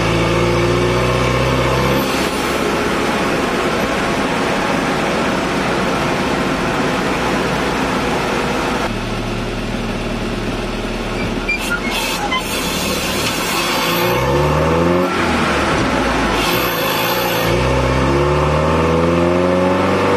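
UAZ 452's 2.5-litre four-cylinder petrol engine, running on a newly fitted SU carburettor, heard from inside the cab on a test drive: it revs up and climbs in pitch several times as the van accelerates, most of them in the second half, with steadier running and road noise in between.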